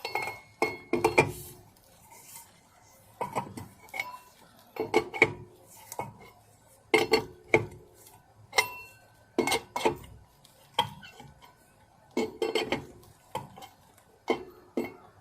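Hard objects clinking and clanking against each other in irregular clusters, some strikes leaving a short metallic ring.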